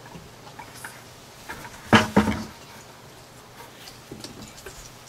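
Stiff wire being threaded through holes in the rim of a plastic bucket, with handling noise from the wire and the bucket: a brief louder scrape about two seconds in, then faint clicks and taps.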